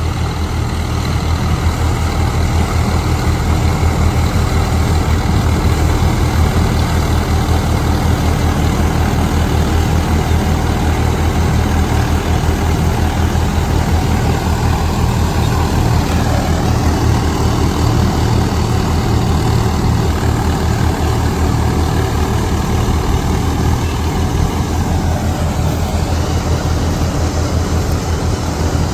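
Swaraj 855 tractor's diesel engine running steadily under load, driving a straw reaper off its power take-off, with the reaper's machinery running along with it.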